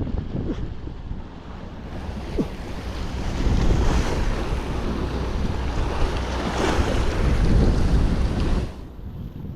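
Sea waves washing in, with wind rumbling on the microphone. The wash builds about two seconds in and falls away sharply near the end.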